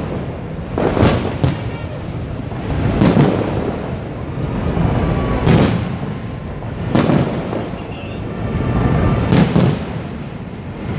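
Aerial firework shells bursting: about seven sharp bangs at irregular gaps of a second or more, each trailing off in a low rumble.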